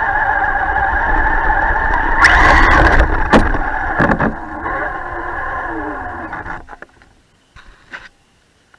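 Electric motor and gear drivetrain of a Traxxas Stampede 4x4 RC truck whining under throttle, with a louder rush and a couple of sharp knocks about two to four seconds in. The whine then drops in pitch and dies away about seven seconds in, leaving near quiet with a few clicks as the truck coasts to a stop.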